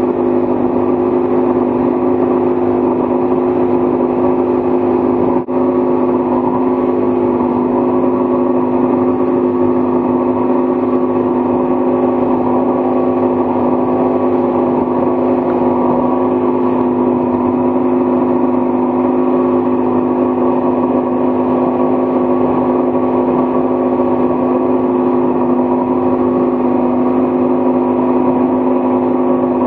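Motorboat engine running at a steady cruising speed, an unchanging drone with the rush of water and spray over it. The sound drops out for an instant about five and a half seconds in.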